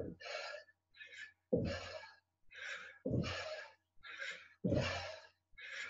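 Hard, quick breathing in and out during squat jumps, with stronger breaths roughly every one and a half seconds that carry a low thud, in time with the landings.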